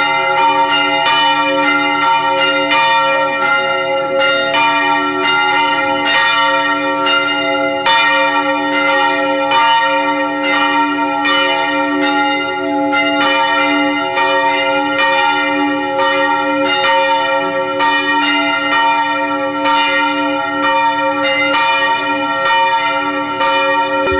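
Bells of a Serbian Orthodox church ringing in a steady, continuous peal, about two strikes a second, each ringing on under the next.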